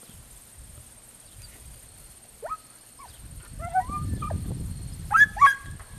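A few short, pitched animal cries that rise and fall, starting about two and a half seconds in and loudest near the end, over a low rumble of movement.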